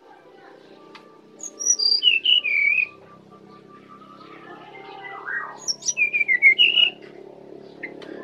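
Brown-chested jungle flycatcher singing: two short, clear whistled phrases that fall from high to lower pitch, about a second and a half in and again around six seconds in. A faint low hum runs underneath.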